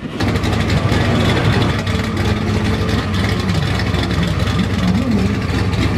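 Twin-turbo big-block V8 of a 1971 Chevrolet Impala running at a steady idle, with a few light throttle blips that rise and fall in pitch around the middle.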